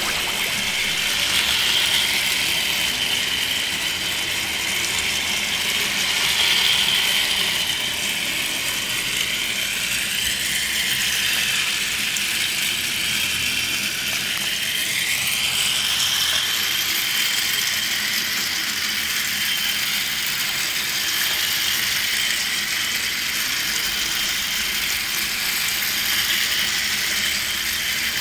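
Capsule Plarail Hankyu 9000 series toy motor cars running on plastic track: their small motors and gears whir steadily, with a high whine that wavers a little as the trains circle.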